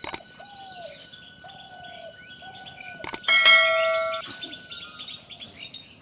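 Two sharp mouse clicks, the second followed at once by a bright bell ding that rings out and fades over about a second: the click-and-bell sound effect of a subscribe-button overlay. Birds chirp faintly throughout.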